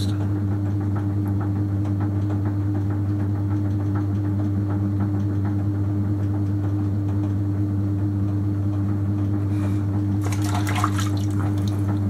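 Electric potter's wheel running with a steady low hum, while wet hands swish and squelch against the spinning clay as the walls of a thrown cylinder are lifted.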